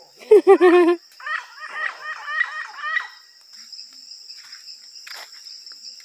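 Chickens calling: one loud call in the first second, then a run of quick, higher calls for about two seconds. Under them runs a steady, high insect drone.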